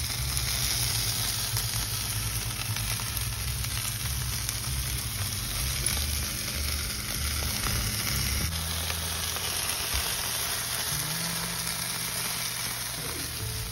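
Chicken barbecue skewers sizzling on a grill over hot charcoal: a steady, even hiss, with a low rumble underneath that shifts a little past the middle.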